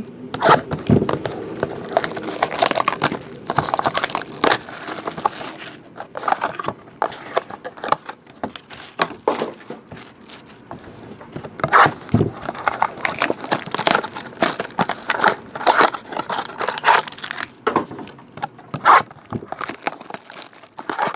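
Plastic wrapping and card packaging crinkling and tearing, in irregular rustles and scrapes, as a box of trading cards is opened and handled.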